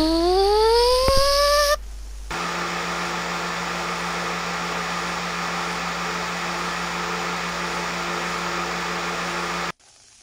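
A pitched whine rising for about two seconds, then a steady motor-like hum that cuts off suddenly near the end.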